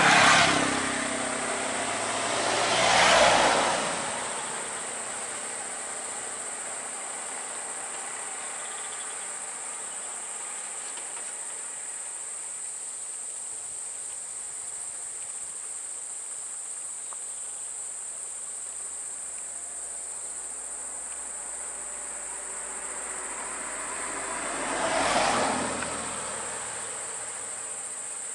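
Steady high-pitched drone of insects from the roadside forest. Vehicles pass on the road, each a rising and fading rush of noise, at the start, about three seconds in and again near the end.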